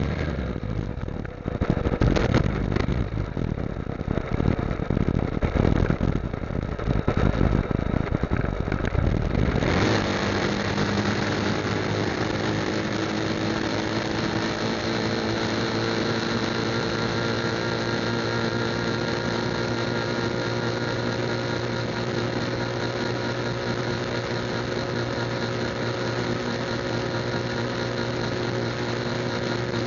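Motorcycle engine running at a steady highway cruising speed. For the first ten seconds heavy wind buffets the microphone in gusts; after that the engine note holds at one steady pitch over road noise.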